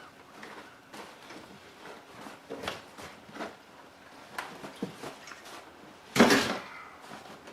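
A heavy portable generator being hauled out of a car by hand: scattered light knocks and bumps, then one loud thud about six seconds in.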